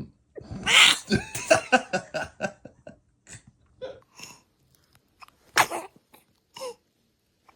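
Newborn baby sneezing. The loudest sneeze comes about half a second in and is followed by a quick run of short voice sounds, with more sneezes later.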